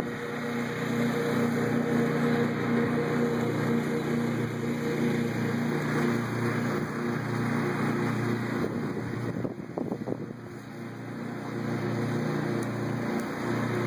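Riding lawn mower's engine running steadily while mowing, a low even hum that briefly drops in level for about a second two-thirds of the way through.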